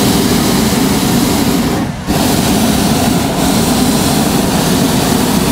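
Hot-air balloon propane burner firing: a loud, steady roar with a brief break about two seconds in. It is heating the envelope during hot inflation.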